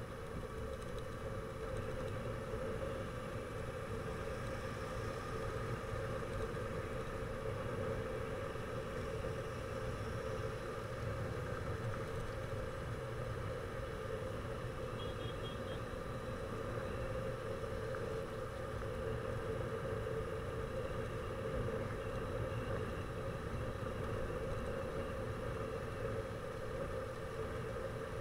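Motorcycle engine running steadily at cruising speed, heard from on board the moving bike.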